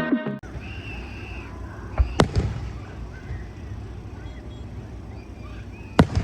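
Fireworks going off: two sharp bangs close together about two seconds in and another near the end, over a low outdoor rumble.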